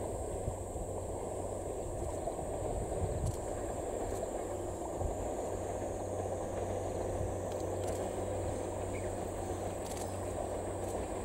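Insects droning steadily at a high pitch over the low, distant rumble of a DE10 diesel-hydraulic locomotive hauling passenger coaches toward the listener.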